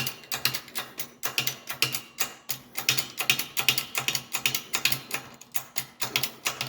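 Ratchet wrench clicking quickly and evenly, about six clicks a second, as the puller's screw is turned down toward contact with the wheel hub.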